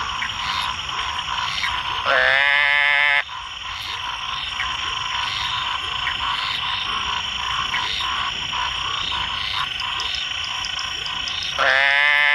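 Two loud, goat-like bleating calls of a Muller's termite frog (Dermatonotus muelleri, the 'sapo-bode'), each about a second long and opening with a short upward swoop. The first comes about two seconds in and the second near the end, over a steady high background chorus.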